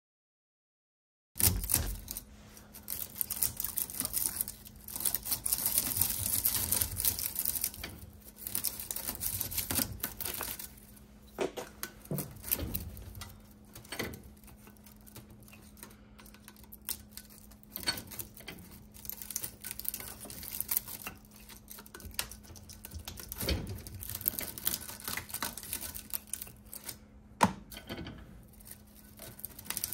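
Copper winding wire being pried and pulled out of an electric motor's steel stator: irregular metallic clicks, scraping and jangling of loose wire against the steel core and tools. The sound starts abruptly about a second and a half in.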